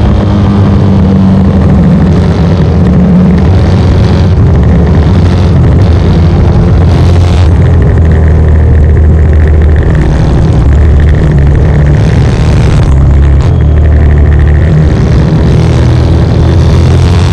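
1972 short-stroke Norton 750 Commando parallel-twin race engine at racing speed, heard from on board the bike, with the engine note rising and falling as the revs change.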